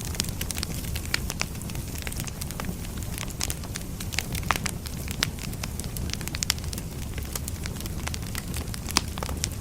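Firewood burning, crackling and popping in sharp, irregular snaps over a steady low rumble.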